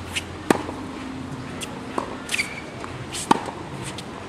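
Tennis rally: a ball struck by rackets, three sharp hits about a second and a half apart, with lighter knocks of the ball bouncing between them.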